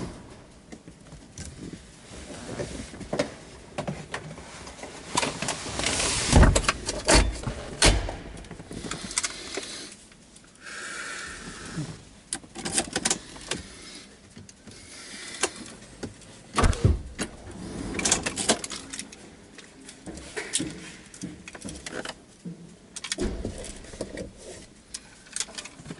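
Handling noise inside a parked car's cabin: irregular clicks, knocks and rustles as things are moved about, with a short tone partway through.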